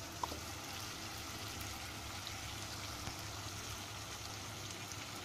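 Chicken feet in their braising sauce simmering and sizzling in a pot on a gas burner, a steady hiss with faint crackles. There is one short click just after the start.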